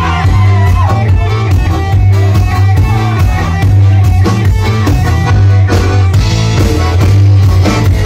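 Live folk-rock band playing an instrumental passage: piano accordion over electric bass guitar and drums, with a steady beat.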